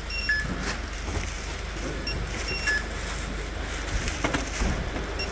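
Wearable barcode scanner giving short, high electronic beeps a few times, some as two-note pairs, as parcels are scanned, over the rustle of plastic parcel bags being handled and a steady low hum.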